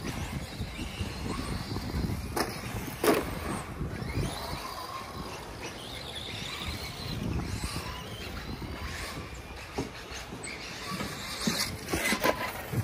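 Electric radio-controlled cars running on a dirt track: motor whine rising and falling with the throttle over tyre and dirt noise. Sharp knocks come about two and three seconds in, and a cluster of them near the end.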